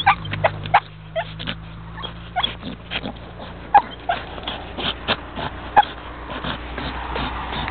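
Staffordshire Bull Terrier whimpering: several short, high whines spread a second or so apart, among many short clicks and taps.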